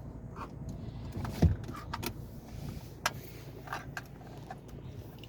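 Pencils and a plastic pencil case being handled as the pencils are moved into the case: scattered clicks and knocks, the loudest a thump about one and a half seconds in.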